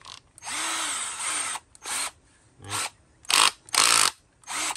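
Hart HPDD50 20V brushed cordless drill driver running with no load: one trigger pull of about a second and a half, the motor spinning up and winding down, then about five quick short blips of the trigger.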